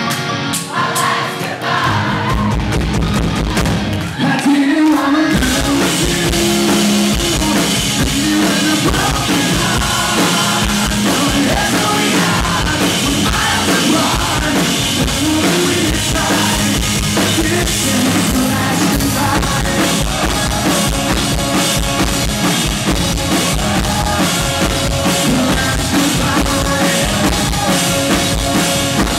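A rock band playing live: electric guitars, bass and a drum kit under a lead singer with backing vocals. The drums and bass come in about two seconds in, and the full band gets louder about five seconds in.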